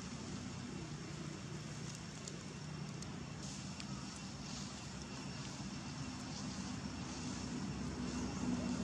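Low steady engine hum of a motor vehicle, growing louder near the end.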